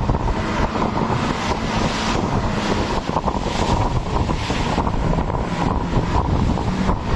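Motorboat running at speed on open sea: a steady engine drone buried under heavy wind buffeting on the microphone and the rush of water against the hull.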